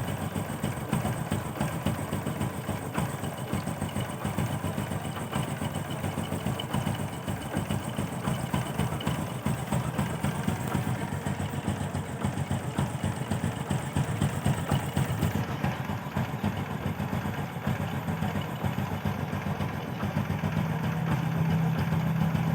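Honda Supra X 125's single-cylinder four-stroke engine idling steadily through its stock exhaust.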